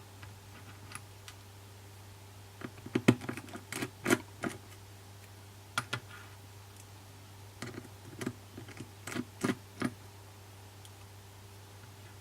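Light, scattered clicks and taps of small repair tools on the internal parts of an opened iPhone 6s as the earpiece speaker assembly is being removed. They come in two short flurries, about three seconds in and again near eight seconds, with a single click in between.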